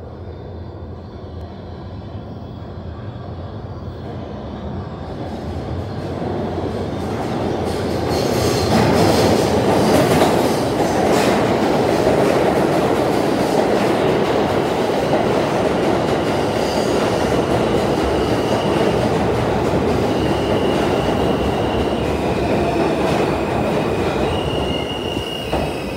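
An R160 subway train entering an underground station. Its rumble grows over about eight seconds and stays loud as the cars run along the platform, and high squeals come and go in the second half as it slows.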